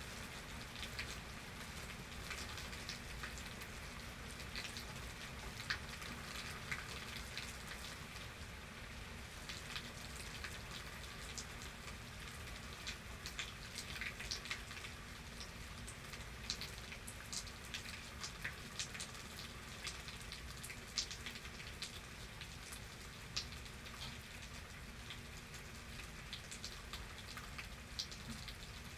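Steady rainfall with many separate drops ticking sharply on a nearby surface over an even hiss of rain.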